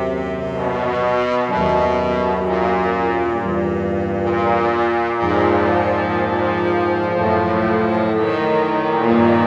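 Wind orchestra playing sustained brass-led chords. The whole band moves to a new chord every second or two.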